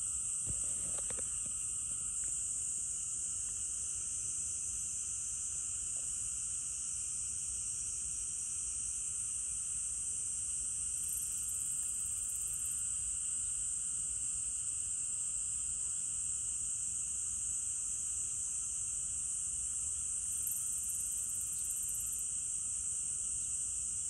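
Steady chorus of insects: a continuous, shrill high buzz with fainter steady tones beneath it, unchanging throughout.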